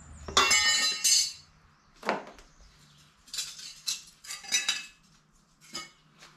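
Metal water-pump parts clinking and scraping against each other as the new wear plate and gasket are set onto an outboard's lower unit. There is a loud rattle lasting about a second near the start, then a string of sharp separate clinks.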